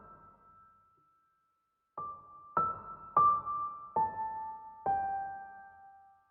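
Slow, soft background piano music: single notes struck one at a time, each ringing out and fading. A near-silent pause of about a second and a half comes before the notes resume about two seconds in.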